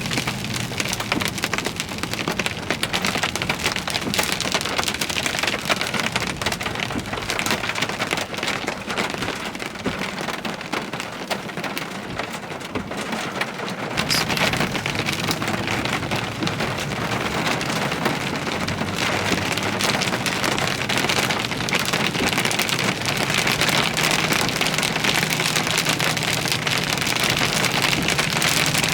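Heavy thunderstorm rain pelting down in a dense, steady patter, easing slightly a little before the middle and then coming down harder again. A steady low hum runs underneath.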